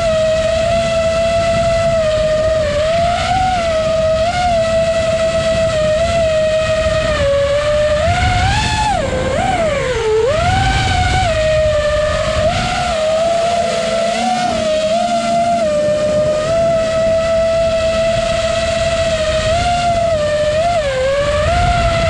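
FPV quadcopter's brushless motors and propellers whining, heard from the onboard camera, the pitch rising and falling with the throttle and dipping sharply then climbing again about ten seconds in. A rush of air runs underneath.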